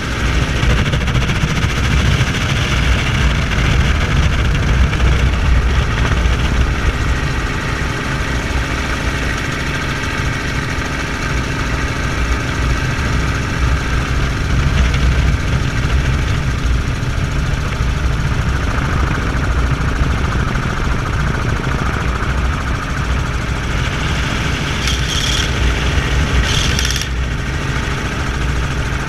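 Helicopter engine and rotor running steadily in flight, heard from inside the open-door cabin. Two brief higher-pitched bursts sound near the end.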